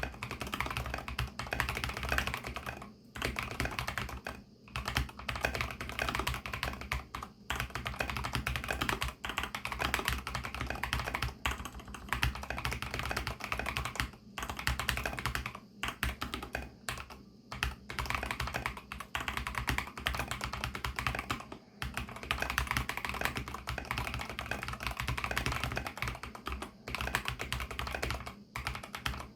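Fast, continuous typing on a fully lubed mStone Groove T mechanical keyboard with MMD Milky switches, silicone sound-dampening foam and MA-profile keycaps. The keystrokes run in quick runs, with brief pauses every few seconds.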